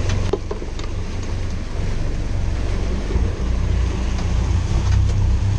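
Fishing boat under way at trolling speed: a steady low rumble of the engine and churning wake, with wind buffeting the microphone. A few faint clicks about half a second in.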